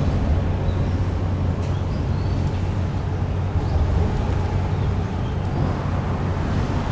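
Steady low engine drone, with an even rush of wind and water over it.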